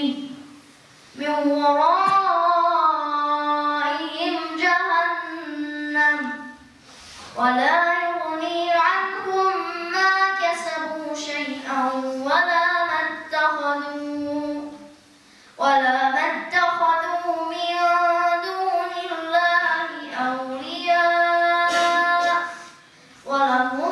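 A boy reciting a surah of the Quran in Arabic in a melodic, chanted style, in long sustained phrases with gliding pitch, broken by short pauses for breath about every seven seconds.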